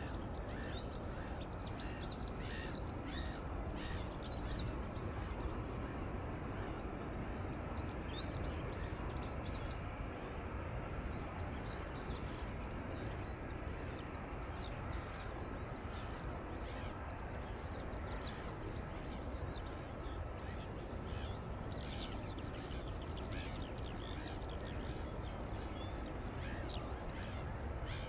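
Small birds singing, a dense run of short high chirps, over a steady low background rumble.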